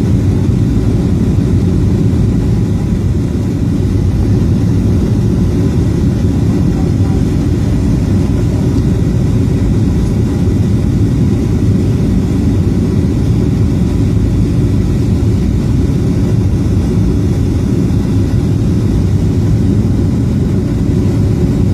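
Airliner cabin noise during descent: a steady, loud low rumble of the jet engines and rushing air heard from inside the cabin.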